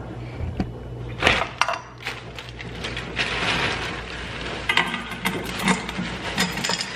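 Kitchen handling sounds: a few sharp clinks and knocks of a pot and utensils being set down and moved, with a stretch of rustling in the middle.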